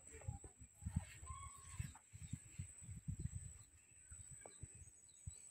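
Faint outdoor ambience: a steady high-pitched whine, a few short bird chirps, and irregular low thumps on the microphone.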